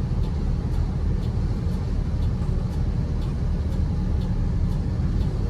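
Steady low rumble of a moving road vehicle heard from inside, with faint regular ticking about twice a second.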